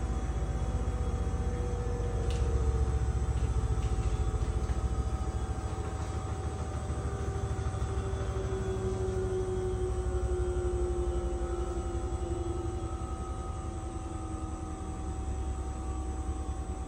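Danube 20 kg washing machine spinning, typical of the final spin of its cycle: a heavy drum rumble with a motor whine that slowly falls in pitch, the whole sound easing off over the last few seconds.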